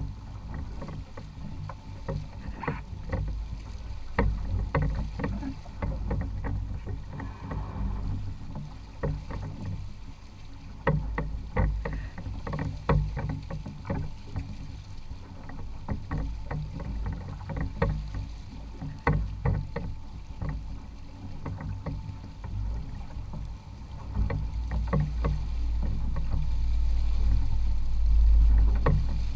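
Water splashing and trickling around the hull of a small boat moving through calm sea, in many short irregular splashes over a low steady rumble. The rumble grows louder over the last few seconds.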